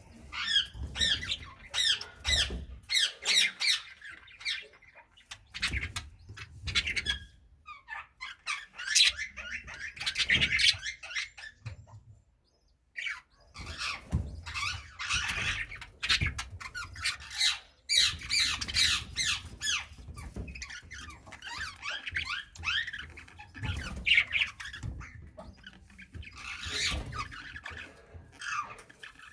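Budgerigars chattering: fast warbling chirps mixed with short squawks, pausing briefly twice.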